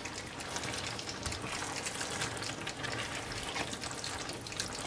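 Peas, minced beef and peppers in a watery tomato sauce sizzling in a frying pan, with wet stirring and fine crackling as a silicone spatula turns them.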